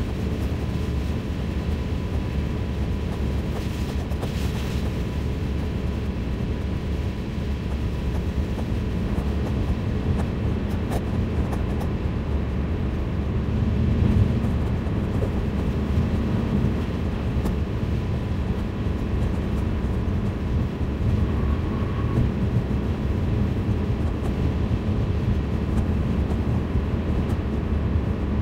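Steady car road noise heard from inside the cabin: engine and tyres running on a wet highway, a low even rumble with a faint steady tone above it.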